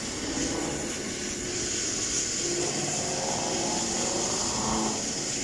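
Air ambulance helicopter running on the ground with its rotors turning, a steady rushing din loud enough that one can barely hear oneself think, with a faint whine rising slightly through the middle.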